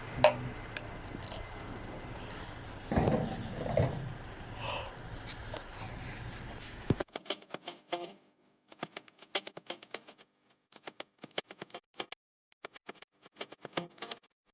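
Open-air background hiss with a sharp click near the start and a few short calls or voices about three seconds in. About seven seconds in this cuts abruptly to quiet, sparse background music of short notes separated by near-silent gaps.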